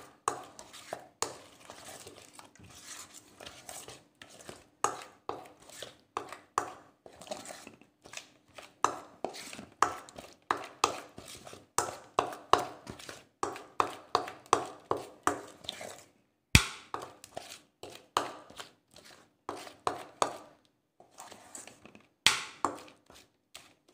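Spoon stirring and scraping thick, wet spice paste around a stainless steel bowl: irregular knocks and scrapes of metal on metal, a few a second, with one sharp click about two-thirds of the way through.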